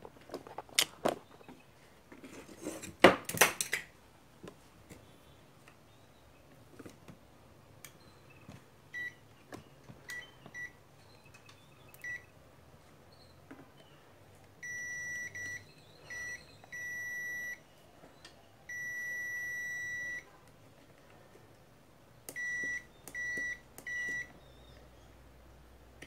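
A few sharp clicks and knocks in the first four seconds, then a digital multimeter's continuity beeper sounding whenever its probes close a circuit across tracks of a washing machine control board. It gives a single steady tone that comes and goes: short pips at first, then longer beeps of up to about a second and a half, and a quick run of short pips near the end.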